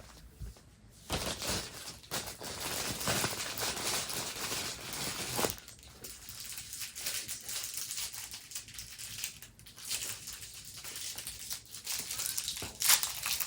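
Plastic packaging crinkling and rustling as small fidget toys are handled and unwrapped. It is busiest in the first few seconds, then comes in scattered rustles, with one sharp louder crinkle near the end.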